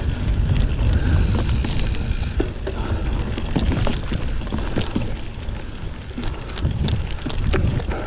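Giant Fathom 29 2 mountain bike ridden over a dirt trail: wind rumbling on the microphone, with scattered clicks and rattles from the tyres and bike over the rough ground.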